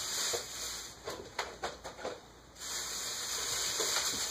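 A few light knocks and clicks of kitchen items being handled, over a steady high hiss that cuts out about a second in and returns after the middle.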